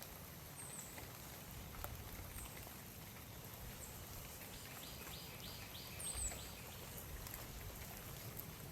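Quiet woodland after heavy rain: scattered drips over a faint steady hiss, with short high bird chirps several times and a brief quick run of repeated notes about halfway through.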